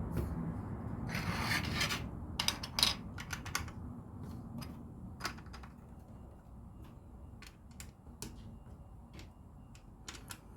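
LEGO bricks being handled and pressed together: scattered small plastic clicks and rustling, busiest in the first four seconds, then sparser, lighter ticks.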